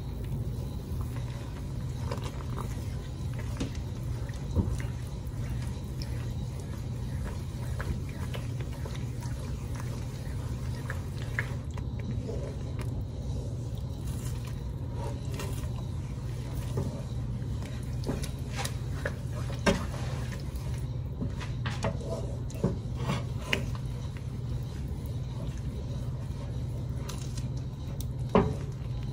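Wooden spoon stirring a thick cream-and-tomato sauce in a nonstick skillet: soft scraping and wet squishing, with a few sharper taps of the spoon against the pan, over a steady low hum.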